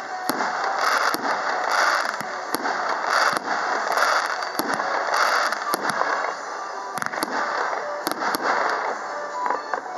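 Category F3 display fireworks: aerial shells launching and bursting in the sky with sharp bangs, about one or two a second, and short hissing bursts of noise between the bangs.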